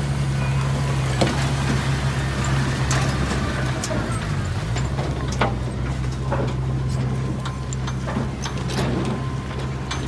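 Small Komatsu bulldozer's diesel engine running steadily, with scattered clicks and knocks from the machine at work. The engine note sags briefly about four seconds in, then recovers.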